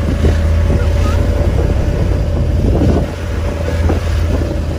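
Riding in a moving open tuk-tuk: the vehicle's steady low rumble, a faint steady hum and wind buffeting the microphone.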